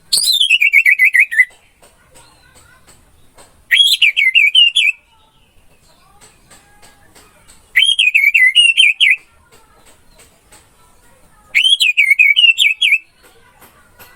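Orange-headed thrush (anis merah) singing four short, loud warbling phrases a few seconds apart. Each phrase lasts about a second and a half and is a quick run of rippling notes; the first falls in pitch, the others open with a sharp upward note.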